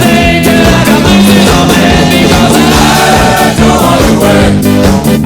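Hockey goal song playing loud: music with a singing voice over a steady drum beat.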